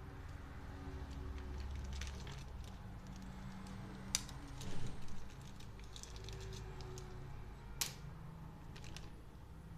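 Small hard objects being handled: scattered sharp clicks and light rattles, loudest in a short cluster about five seconds in and one more sharp click near eight seconds, over a low steady hum.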